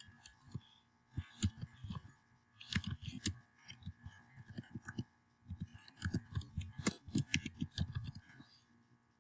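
Computer keyboard typing, quick keystrokes in several bursts with short pauses between.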